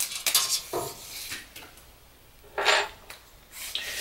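Handling clatter of a plastic liquid-tight cable connector and its locknut being taken apart: short clicks and rattles, with one louder clatter about two and a half seconds in.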